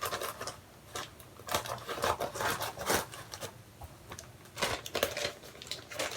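Parcel packaging being torn open and crinkled by hand, in irregular rustles and rips.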